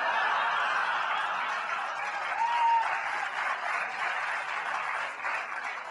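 Audience laughing and applauding, a dense steady clapping that thins out near the end. A short whistle sounds briefly about two and a half seconds in.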